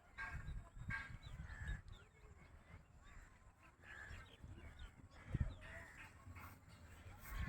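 Birds calling: a series of faint, short calls over a low rumble, with a single thump about five seconds in.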